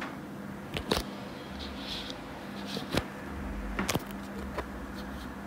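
A handful of sharp clicks, two close together about a second in, one at three seconds and a double click just before four seconds, over a steady low hum.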